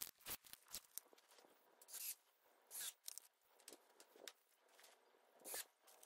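Faint, short rustles and crinkles of a small plastic hinge package being handled and opened, with a few light clicks.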